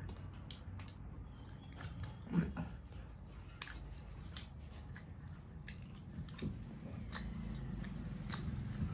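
Chewing and small mouth sounds from people eating rice and curry by hand, with fingers working rice on metal plates and scattered light clicks. One short, louder low sound about two and a half seconds in.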